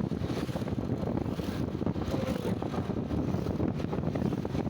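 Wind buffeting the microphone over a motorcycle engine running steadily while riding.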